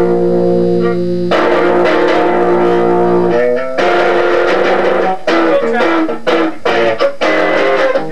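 Loud guitar playing: a chord held and ringing for about three seconds, then choppy, rhythmic chords that stop and start in short bursts.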